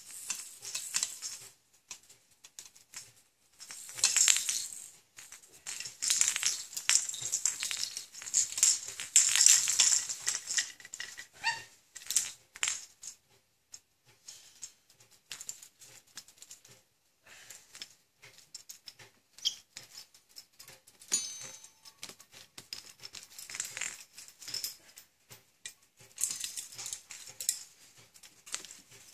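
Hanging plastic baby toys and beaded charms rattling and clinking as a caique parrot climbs, hangs from and pulls on them. The clatter comes in bursts with short pauses, busiest in the first half.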